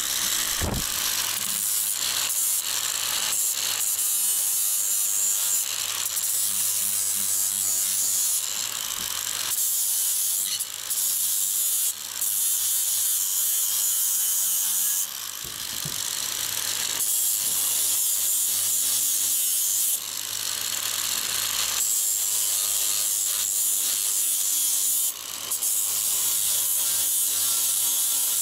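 Ferrex 40 V cordless angle grinder running and grinding an old metal hook: a steady motor hum under a loud grinding hiss. The hiss dips briefly several times along the way.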